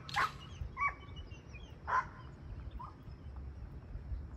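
Labrador retriever giving a few short, high whines, the first the loudest, while it sits waiting on a training stand to be sent for a retrieve.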